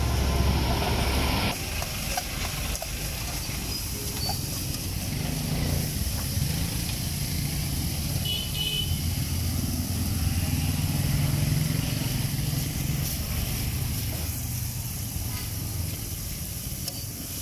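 Low, steady engine rumble of street traffic. It drops suddenly in level about a second and a half in.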